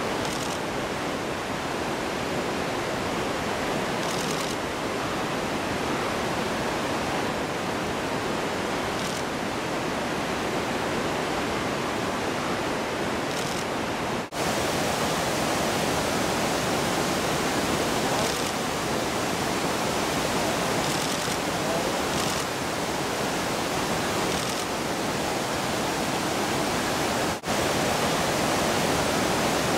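A fast-flowing river rushing steadily, with two very short dropouts, about halfway through and near the end.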